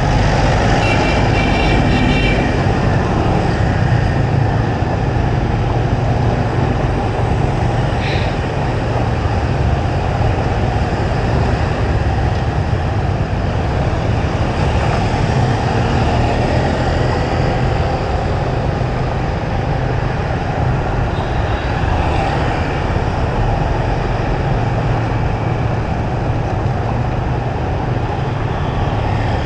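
Steady city street traffic heard while riding along a road: a continuous low rumble of engines and tyres. A vehicle horn toots briefly at the start.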